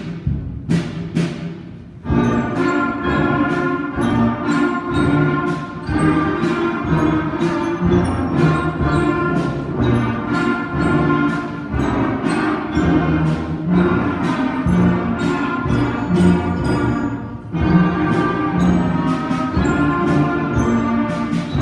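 School concert band playing a piece: drum strikes alone for about the first two seconds, then the full band of wind instruments comes in with held chords over a steady drum beat, breaking off briefly near the end before carrying on.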